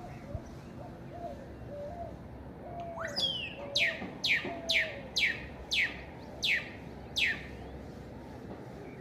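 Great-tailed grackle (clarinero) calling: a rising sweep about three seconds in, then a series of seven loud falling whistles, each dropping steeply in pitch, at about two a second.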